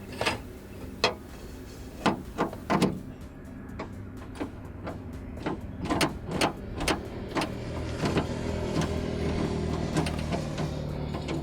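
Irregular sharp clicks and knocks of hand tools and metal parts inside a Hyundai Santro's door while its outer door handle is being unbolted. A steady low hum comes in about two-thirds of the way through.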